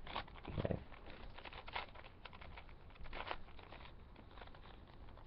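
Plastic 4x4 Rubik's Cube handled and turned by hand: scattered soft clicks and rattles of its layers, a little busier around two and three seconds in.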